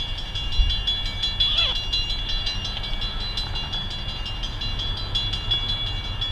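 Norfolk Southern autorack and intermodal freight train rolling slowly toward a stop: a low rumble with a steady, high-pitched metal squeal from the cars, and one short falling squeal about a second and a half in.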